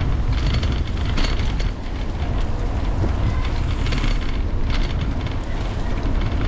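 Wind rushing over the microphone of a camera mounted on the handlebars of a moving bicycle, a steady low rumble with hiss, mixed with tyre noise on the cycle path and a few light clicks and rattles.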